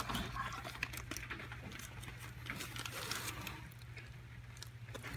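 Clear plastic parts bag crinkling and rustling as it is pulled out of a cardboard box and handled, with irregular small crackles.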